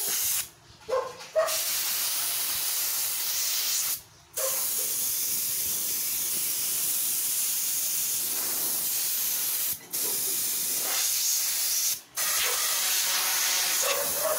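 Kärcher SC4 steam cleaner's hand-held gun blasting steam in a steady hiss, breaking off briefly four times.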